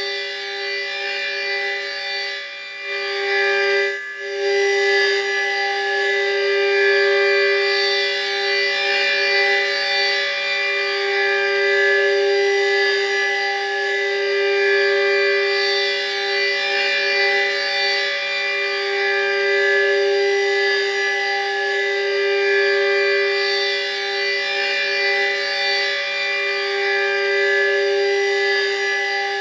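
HOR Super Sirex 15 civil defence siren sounding its steady alert signal: a loud, unchanging chord-like tone whose loudness swells and fades every few seconds. The sound dips briefly twice near the start.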